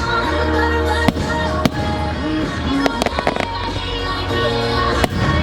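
Fireworks bursting with sharp bangs over loud show music: single reports about a second and a second and a half in, a quick crackling cluster around the middle, and another bang near the end.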